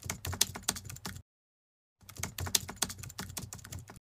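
Computer keyboard typing sound effect: two runs of rapid keystrokes, the first about a second long and the second about two seconds, with a dead-silent gap between.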